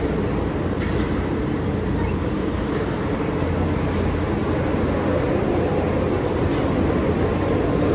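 Walt Disney World Mark VI monorail train running past close by along its beam: a steady low running noise from its motors and rubber tyres.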